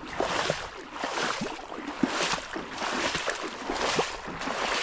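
Shallow water splashing and sloshing in many short, irregular splashes as a wading man grips a hooked fish by its gill.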